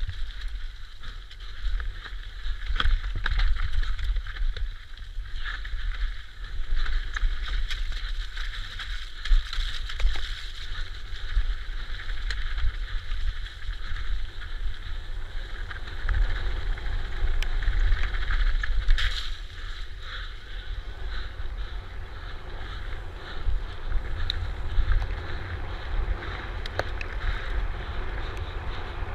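E-mountain bike ridden fast down a dirt trail: wind rumble on the camera microphone over tyre roar, with frequent knocks and rattles from the bike over bumps.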